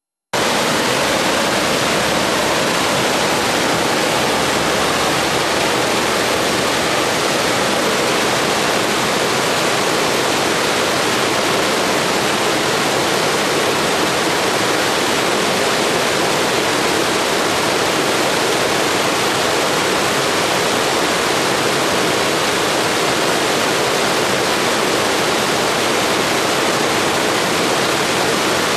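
Mountain stream cascading over rocks: a steady rush of water that cuts in suddenly.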